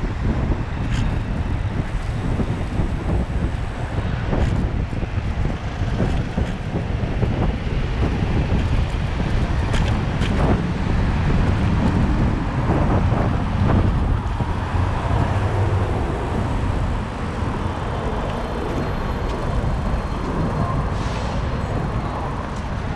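City road traffic noise mixed with steady wind rumble on the microphone of a moving bicycle, with a few short sharp knocks.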